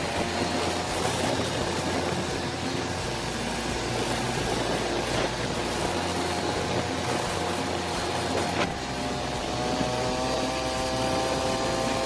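Motorcycle engine running as the bike rides along a rough road, heard from the handlebars together with a steady rush of wind and road noise. The engine note climbs in pitch again near the end as the bike accelerates.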